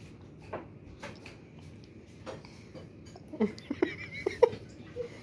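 A baby making several short squealing, babbling sounds a little past halfway, after a few faint mouth clicks while sucking on a food pouch.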